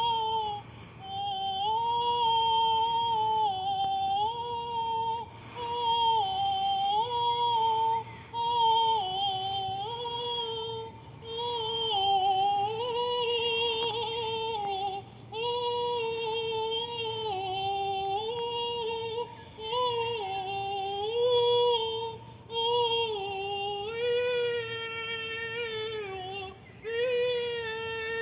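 A woman singing solo and unaccompanied, without words: long high held notes that step down and back up, in phrases of one to three seconds with short breaths between.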